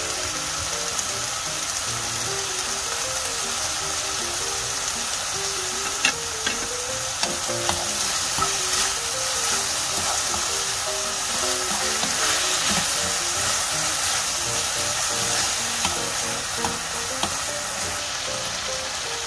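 Sliced pork belly sizzling steadily in a frying pan as it is stir-fried, with scattered clicks and scrapes of a wooden spatula against the pan.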